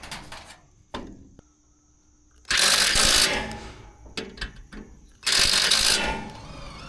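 Power drill running in two short bursts of about a second each, roughly three seconds apart, with a few clicks and knocks between them, as the overlapping aluminum hat channel of the rack is fastened.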